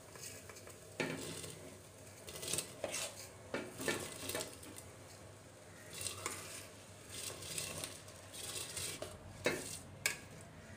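Jeerakasala rice being tipped from a metal bowl into a pot of water, the bowl clinking and scraping against the aluminium pot's rim in a string of short, sharp clatters while the grains slide and splash in.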